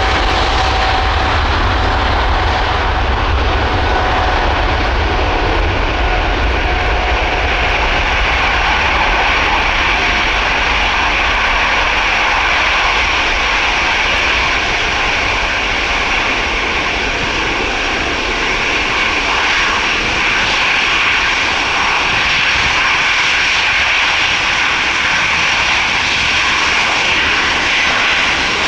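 Four-engined Airbus A340-300 jet engines running loud and steady. A deep rumble dominates the first several seconds, then eases as a higher hiss grows stronger through the rest.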